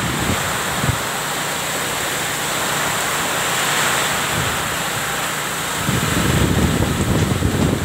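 Typhoon wind and heavy rain: a steady rushing noise, with gusts buffeting the microphone over the last two seconds.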